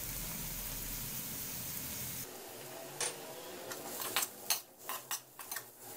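Shredded chicken and onions sizzling in an aluminium kadhai, steady at first. From about halfway on, a metal utensil scrapes and taps against the pan in a quick run of strokes as the mixture is stirred.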